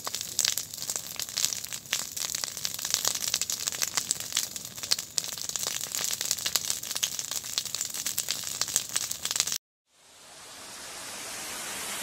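Burning vegetation in a forest fire, crackling and popping thickly and irregularly. Near the end it cuts off abruptly, and after a brief silence a hiss rises steadily in loudness.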